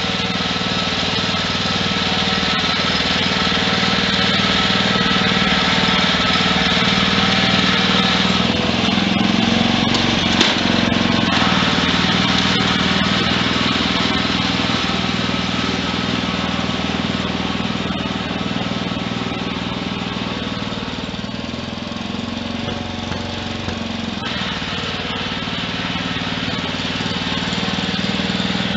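Wheel Horse garden tractor's small engine running steadily, its note rising a little about ten seconds in and easing back down after twenty seconds, with one short click in the middle.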